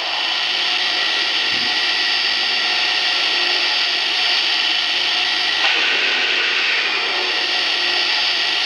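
A stationary Lionel Vision Line O gauge Santa Fe 2-10-10-2 model steam locomotive playing its standing-still steam sounds through its onboard speaker: a steady hiss.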